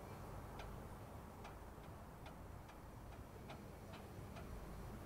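Faint clock ticking at an even pace, a little more than one tick a second.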